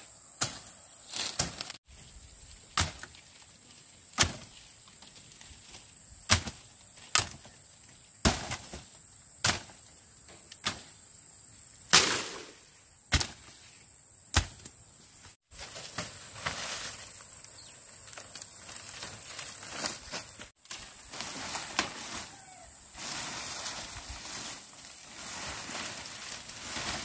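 Machete chopping through brush and woody stems, a dozen sharp strokes about a second apart. In the second half it gives way to the rustling and crackling of dry leaf thatch being pulled apart by hand.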